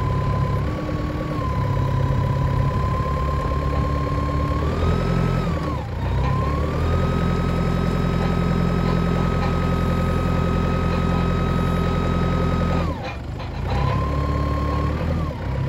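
Heden 4-ton rough-terrain forklift's engine running while the hydraulics tilt the forks, with a steady whine over the engine hum. About five seconds in the engine and whine rise in pitch and hold there for about six seconds, then drop back near the end.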